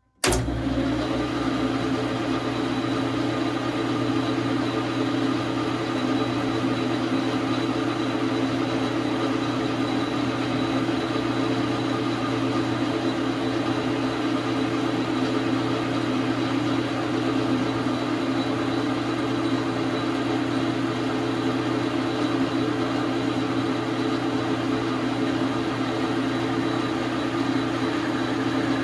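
Dar Sin 12 x 37 manual lathe running steadily, a constant machine hum that starts abruptly about a third of a second in.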